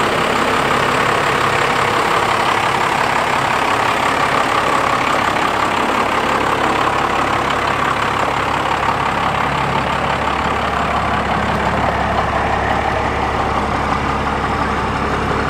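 Twin-turbocharged 1996 Dodge Ram's 5.9 12-valve Cummins diesel running steadily at low speed as the truck rolls slowly along.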